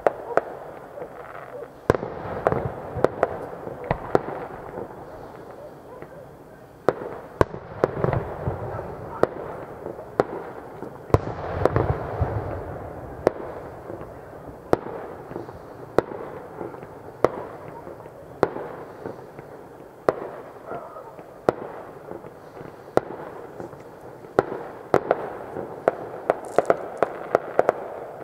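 Fireworks display: aerial shells bursting with many sharp bangs and crackles. Heavier booms with a low rumble come about 2, 8 and 12 seconds in.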